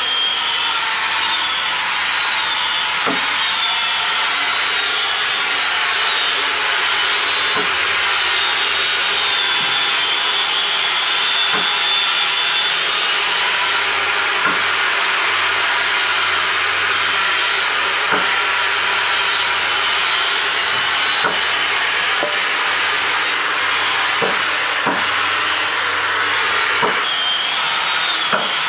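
A woodworking machine running steadily: a loud hiss with a high whine that wavers up and down in pitch, and a faint click every few seconds.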